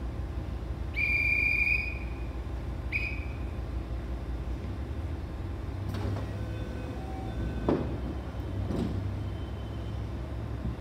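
A shrill whistle sounds twice, a long blast and then a short one, over the steady low idle of a KiHa 40 diesel railcar. A few sharp knocks follow in the second half.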